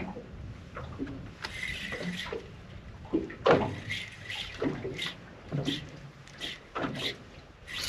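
Water splashing and sloshing in irregular short bursts.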